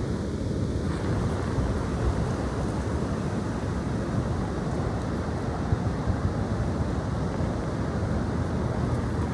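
Strong gusty wind blowing in a steady rush, buffeting the microphone with low rumble.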